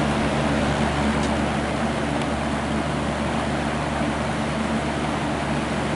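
Vintage Brentwood box fan running steadily, its motor humming under the rush of air from the blades, not yet up to full speed after a slow, struggling start. The owner says the motor badly needs oiling.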